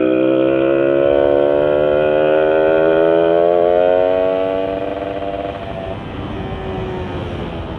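Yamaha Sigma two-stroke motorcycle engine, running a 30 mm UMA carburettor and V-Force4 reed valve, accelerating under load with its pitch rising steadily for about five seconds. Then the throttle eases off and it runs lower and quieter.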